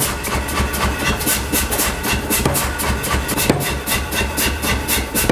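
Power hammer striking a glowing Damascus steel knife tang on its die in a rapid, even run of blows, drawing out the integral tang.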